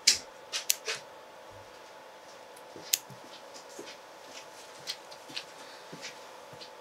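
Small fly-tying scissors snipping through the synthetic brush fibres of a fly's bulky head: a quick cluster of short, sharp snips at the start, then single snips every second or two.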